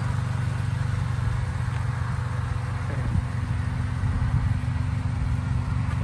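Acura RSX's four-cylinder engine running steadily at low revs through an aftermarket Greddy exhaust as the car rolls slowly.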